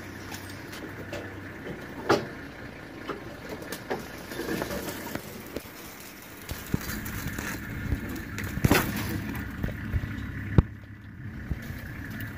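Toyota safari game-drive vehicle's engine running steadily at low speed, with a few sharp clicks or knocks, the loudest about ten and a half seconds in.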